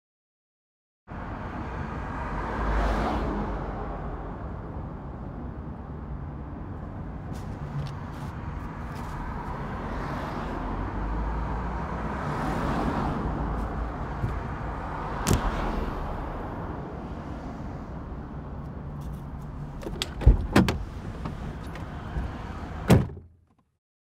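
Ambience inside a parked car: a steady low rumble with traffic swelling past twice, a few light clicks and rustles, then several sharp knocks and thuds, a close pair and a final loud one near the end, before the sound cuts off suddenly.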